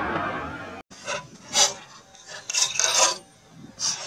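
A steady noisy rush fades and cuts off about a second in. Then come a few short rasping rubs and rustles: handling noise from a hunter's clothing and rifle close to the microphone.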